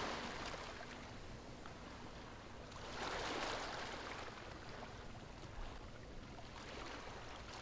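Ocean waves washing on a shore, a soft even rush that ebbs early on and swells again with one wave about three seconds in.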